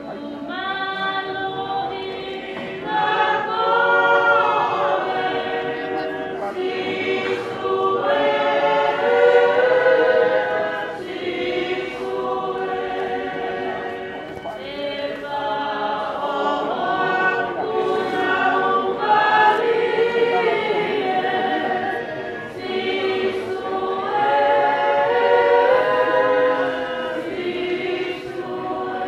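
A choir singing a hymn in several sustained voice parts, phrase after phrase with short breaths between.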